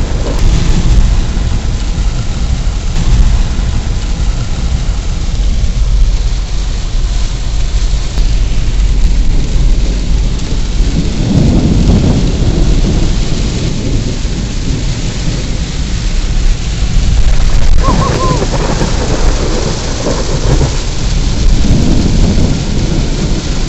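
Heavy rain pelting a moving car, a dense steady hiss over a deep low rumble, swelling louder a couple of times.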